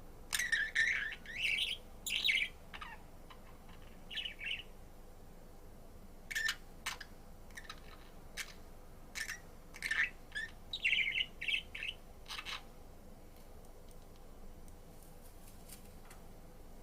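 Pet budgerigar chirping and chattering in short bursts of quick high chirps and clicks, with brief pauses between them, falling silent near the end.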